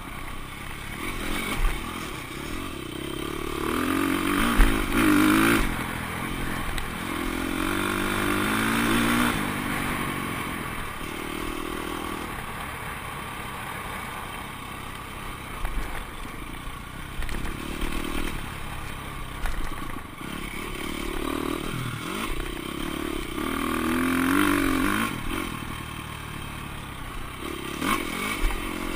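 Off-road dirt bike engine ridden hard along a rough trail, its revs rising and falling again and again with throttle and gear changes, with clatter and short knocks from the bike over bumps.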